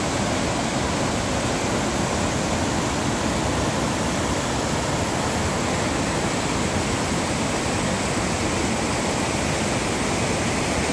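Mountain creek rushing over boulders in white-water rapids: a steady, unbroken rush of water.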